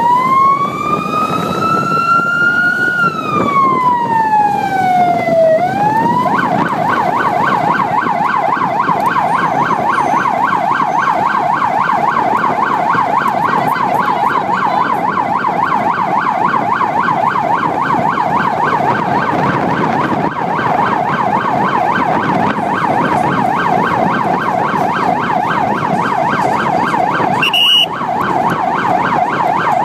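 Vehicle siren sounding one slow wail, rising for about three seconds and then falling, before switching about six seconds in to a fast, repeating yelp that keeps going, over the low rumble of the vehicle.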